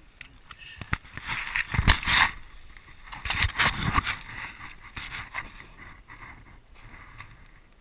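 Wet splashing and squelching in shallow water and mud, in two loud bursts of slaps and splashes about a second in and again about three seconds in, then quieter.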